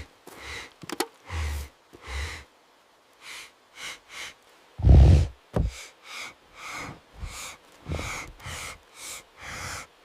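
Cartoon bear sound effect: rapid breathy sniffing and snorting, a puff about every half second, with one loud deep grunt about five seconds in.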